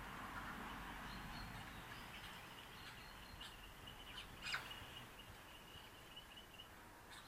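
Faint high-pitched bird chirping, with one louder, quickly falling call about four and a half seconds in.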